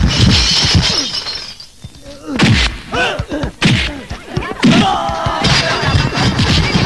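Film fight sound effects: a quick run of punch and body-blow thuds with something shattering, mixed with short shouts and grunts.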